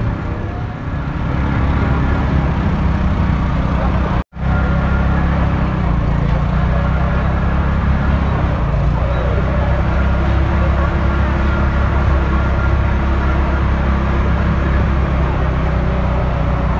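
Busy outdoor market ambience: a crowd of voices over a steady low rumble. The sound cuts out for a moment about four seconds in.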